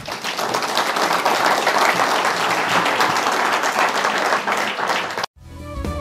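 Audience applauding steadily, cut off suddenly a little after five seconds in, then instrumental music begins.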